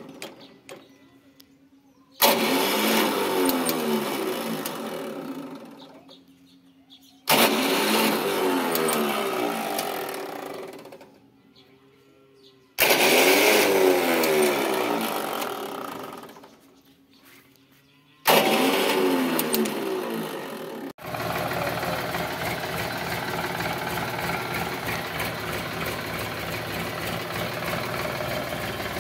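Sonalika tractor diesel engine starting four times; each time it comes in suddenly, then winds down and dies away with falling pitch over a few seconds. About two-thirds of the way through, the engine is running steadily.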